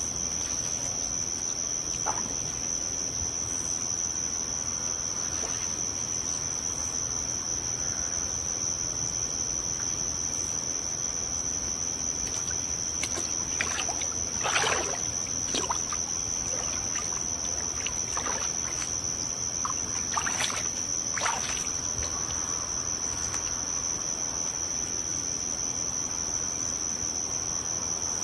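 Steady, high-pitched insect chorus, with a few soft water sloshes from the pool in the middle.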